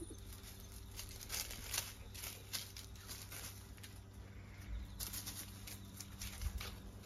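Scattered light rustles, scuffs and ticks of footsteps moving through dry leaf litter and soil, over a faint steady low hum.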